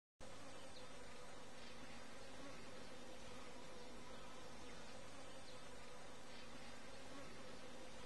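Faint, steady buzzing of honeybees, beginning just after a brief dead-silent gap at the start.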